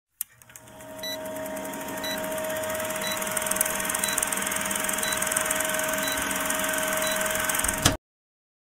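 Film-countdown intro sound effect: an old film projector's steady whir and crackle, growing louder over the first two seconds, with a short high pip about once a second. It ends in a sharp click and cuts off suddenly near the end.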